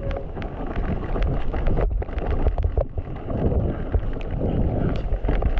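Mountain bike riding fast down a dirt trail: tyres rumbling over the ground and wind on the microphone, with frequent clicks and rattles from the bike over bumps.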